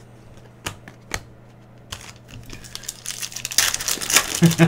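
A few sharp clicks of trading cards being handled, then, from about three seconds in, a loud crinkling and tearing as a foil Panini Prizm basketball pack wrapper is ripped open.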